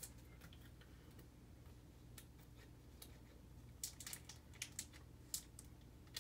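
Near silence over a faint low room hum, broken by light scattered clicks and ticks, more of them in the second half, from trading cards and foil packs being handled.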